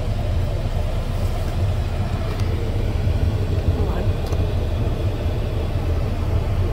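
Steady low rumble of a first-generation Ford Edge running, heard from inside the cabin.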